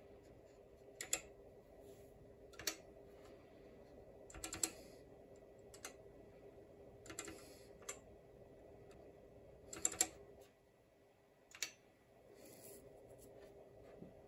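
Keys on a reproduction MCM/70 computer keyboard being pressed one at a time: about a dozen separate clicks at uneven intervals, some in quick pairs, with pauses between. A faint steady hum lies underneath.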